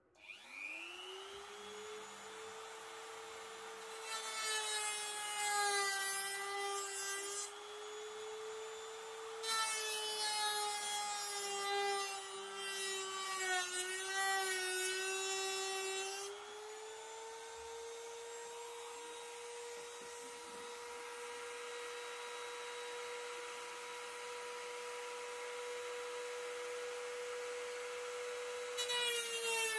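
Dremel rotary tool with a cut-off disc spinning up at the start, then running with a steady high whine. Twice, for several seconds each (about 4 s in and about 10 s in), and again near the end, the disc grinds loudly into the model railroad track's rail and the motor's pitch drops under the load.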